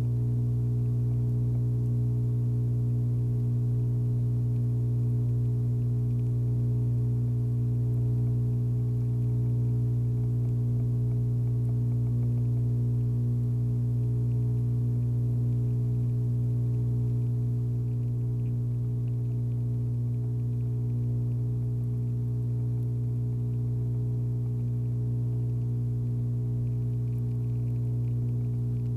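Steady low electrical hum with a ladder of evenly spaced overtones, unchanging throughout.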